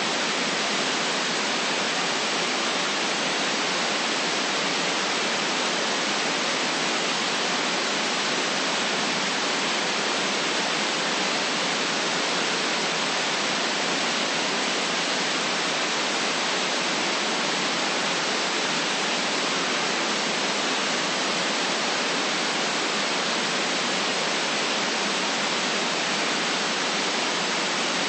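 Steady static hiss, even and unchanging, with little bass.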